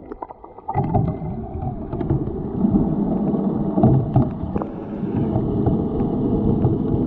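Muffled underwater sound from a submerged camera: a low rumbling wash of moving water with scattered clicks and knocks, quieter for the first half second and then steadier.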